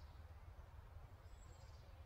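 Near silence: a steady low hum, with a faint high bird chirp about one and a half seconds in.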